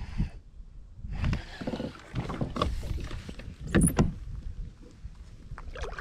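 Kayak being paddled: uneven paddle strokes with water splashing and the paddle knocking, loudest about four seconds in.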